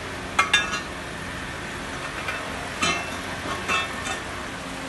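Bent steel tubes clinking and ringing as they are handled and knocked together on a concrete floor: a pair of sharp metallic clinks about half a second in, then several more around three to four seconds. A steady workshop hum runs underneath.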